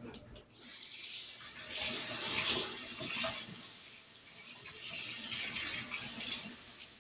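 Kitchen sink faucet running as used utensils and dishes are rinsed under it. The water starts about half a second in and rises and falls as things are moved through the stream, easing off near the end.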